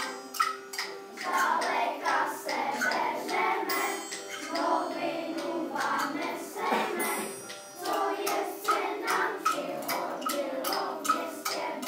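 A group of children singing together in unison, with a steady beat of small percussion taps, about two or three a second, heard most clearly at the start and near the end.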